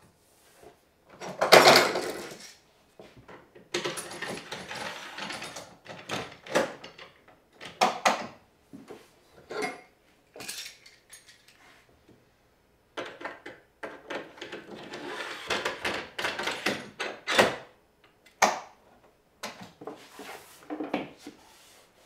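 Maple boards and an aluminium track-saw guide rail being slid, shifted and set down on a wooden workbench: a string of scrapes, rubs and knocks, with a loud scrape-and-clunk about a second and a half in and a sharp knock about seventeen seconds in.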